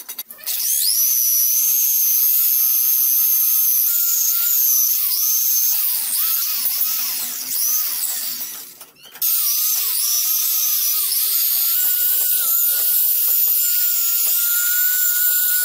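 Electric angle grinder with an abrasive wheel worked against an aluminium motorcycle engine casing, running with a high whine whose pitch dips and wavers as it is pressed into the metal. It stops about eight seconds in and starts again a second later, its pitch climbing slightly near the end.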